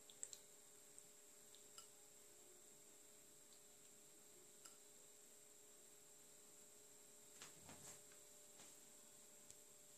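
Near silence: a faint steady hum with a few soft scattered clicks.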